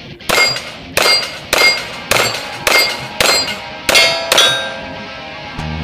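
Eight shots from a Detonics Combat Master compact 1911 in .45 ACP, fired about two a second to empty an eight-round magazine, each shot mixed with the clang of a steel plate being hit.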